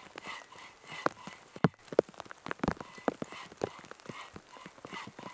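Rain dripping onto leaves and undergrowth in a forest: irregular sharp taps of differing loudness, a few of them louder around two seconds in.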